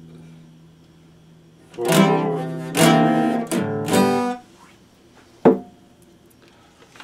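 Epiphone acoustic guitar: a held chord dying away, then a quick run of strummed chords about two seconds in that stops abruptly. A single sharp knock follows about five and a half seconds in.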